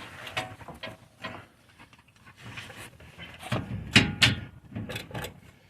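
Irregular metal clicks and clunks of hand tools and exhaust hardware being handled while a hanger or clamp bolt is started, with a run of louder clanks past the halfway point.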